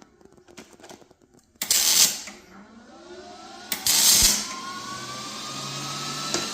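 Metalworking on worn boat metal: two short, loud bursts of harsh hiss about two seconds apart, with a few clicks before them. A machine hum follows, its pitch slowly rising.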